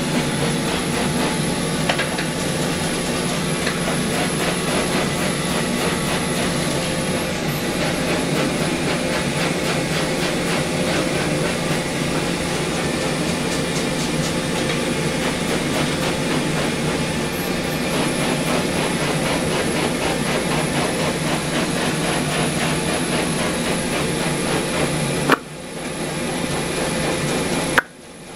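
Steady, loud mechanical running noise with a faint high whine, cutting out abruptly twice near the end with a click each time.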